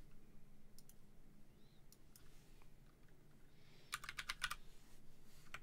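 Faint computer keyboard typing: a couple of keystrokes just under a second in, then a quick run of about half a dozen keystrokes around four seconds in.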